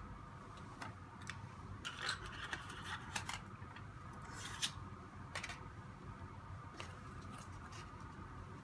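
Aluminium foil crinkling as it is pressed over the mouths of glass sample bottles, with scattered light clicks and taps of glass on a plastic rack; the loudest crinkling comes between about two and five seconds in. A faint steady hum runs underneath.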